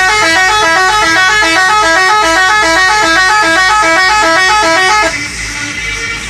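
A bus's telolet horn, a set of air-horn trumpets playing a quick, repeating multi-note melody, loud, cutting off abruptly about five seconds in.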